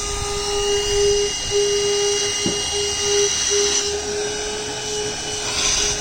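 VacLife VL106 cordless handheld vacuum cleaner running steadily: a high motor whine over rushing air, its tone dipping briefly now and then as the nozzle works over a surface.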